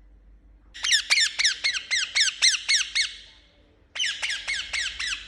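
Indian ringneck parakeet calling in quick, repeated sharp notes, about four a second, each one falling in pitch. A run of about nine calls is followed by a short pause, then a second run of about five.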